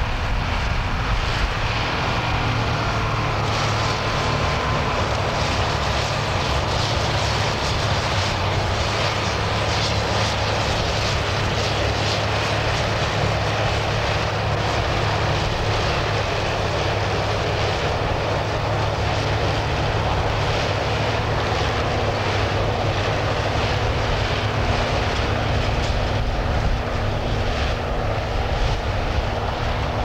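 A self-propelled John Deere forage harvester and the tractor hauling the silage trailer beside it, their diesel engines running under load at a steady drone while the harvester picks up grass for silage.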